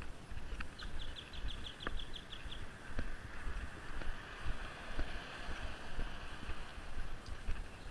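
Wind rumbling and buffeting on the microphone while moving along a roadside, with road traffic passing. About a second in comes a brief run of about a dozen quick, evenly spaced high ticks.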